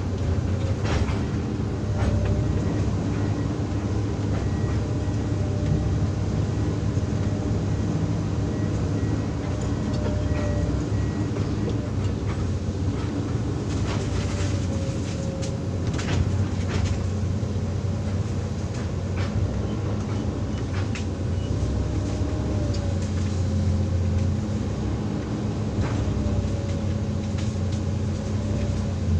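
Hydraulic excavator's diesel engine running steadily under load, with a faint wavering whine and a few sharp clanks, several of them about halfway through.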